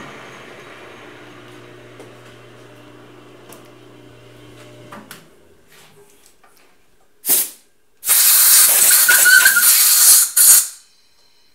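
Emco V13 lathe spindle running with a low steady hum and winding to a stop about five seconds in, at the end of a boring pass. Then a short hiss and a longer, loud hiss of air, as from a compressed-air blow gun clearing chips from the freshly bored steel die.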